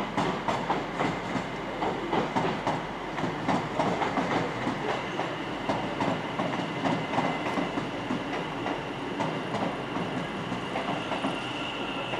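Train wheels clicking over rail joints above a steady running rumble. A high, steady squeal comes in about five seconds in and grows louder near the end.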